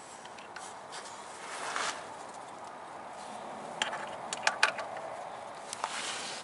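Hand and sleeve rustling against parts in a cramped engine bay, then a few sharp, light metal clicks as a metal tool is handled and fitted at the alternator clutch pulley, over a faint steady hiss.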